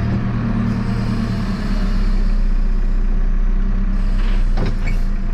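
JCB 3CX backhoe loader's four-cylinder diesel engine running as the machine creeps forward. The engine gets louder and heavier about a second and a half in.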